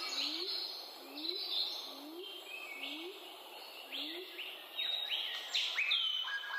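Birds calling: a low rising note repeated about every two-thirds of a second until about four and a half seconds in, and higher chirps and rising whistles overlapping and growing busier and louder near the end.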